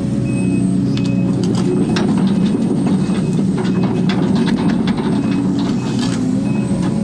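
Case 250D excavator's diesel engine running steadily, heard inside the operator's cab. Over it comes a rapid, irregular clatter of clicks and knocks as the boom and bucket work.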